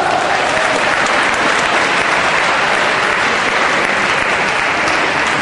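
Applause: many people clapping steadily and continuously.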